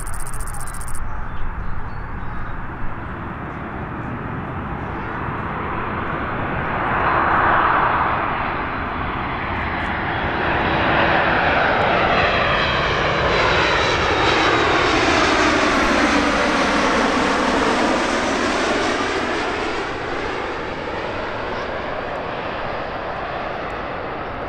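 Jet airliner flying low overhead on approach to land. Its engine noise builds over several seconds and is loudest in the middle, with a sweeping, phasing whoosh as it passes, then eases off toward the end.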